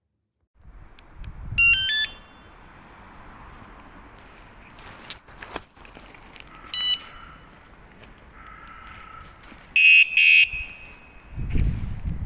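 Electronic beeps from a wireless motorcycle anti-theft alarm: a quick run of stepped tones early, a short chirp later, and two loud beeps near the end, over a low background hiss.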